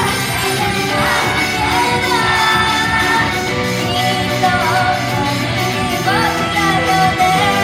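Japanese idol group singing a pop song live over a loud backing track; the female voices come in about a second in, after an instrumental passage.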